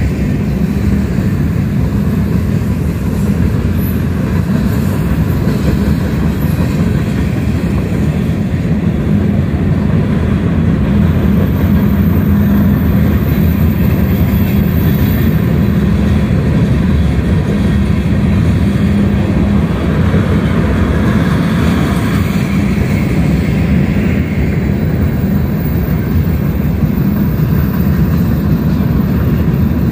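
Manifest freight train's cars rolling past at speed: a loud, steady rumble of steel wheels on the rails.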